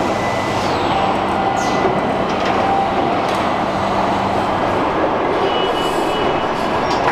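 Steady industrial noise on a car-plant production floor: conveyors and machinery running with a continuous rumble, and a low hum that stops about four and a half seconds in.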